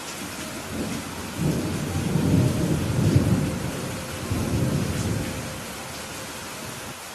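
Thunder rumbling over steady rain: a low rumble builds about a second in, peaks, swells once more and dies away, while the rain hiss carries on evenly.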